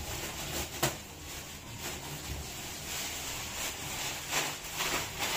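Rustling and handling noises from unpacking a PC cabinet out of its box and packing, with a sharp knock about a second in.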